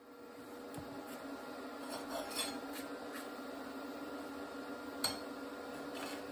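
Steel parts clinking and rubbing as they are handled on a metal workbench, with a steady low hum underneath; a sharp clink about five seconds in is the loudest sound.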